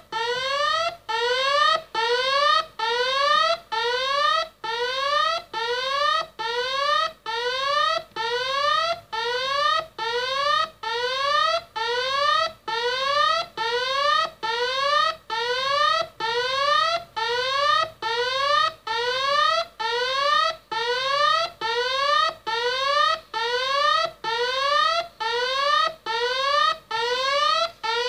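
Contemporary electronic alarm sounding continuously: a short tone that sweeps upward in pitch and cuts off sharply, repeated steadily a little faster than once a second.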